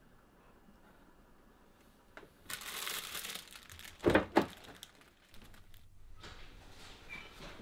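A second of crinkling and rustling, then two heavy thumps close together about four seconds in, followed by a faint low hum.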